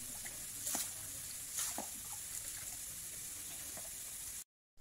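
Steady outdoor hiss by a fishing pond, with water noise and two brief clicks in the first two seconds.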